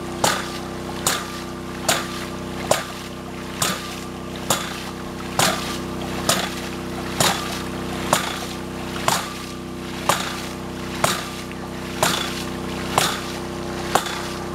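Hydraulic ram pump cycling on its own: the waste valve slams shut with a sharp clack about once a second, and water splashes out of the valve between clacks. Each slam is the water-hammer pulse that drives water through the check valve and up the delivery pipe; the valve is being adjusted to tune the pump.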